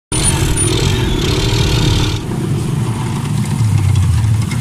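Motorcycle engine of a passenger tricycle running under way, heard from inside the sidecar, a low pulsing engine note over road noise. A higher hiss drops away about two seconds in.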